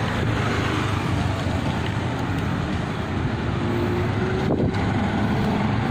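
Steady wind rush on the microphone of a phone carried on a moving bicycle, with road noise from riding among a group of cyclists.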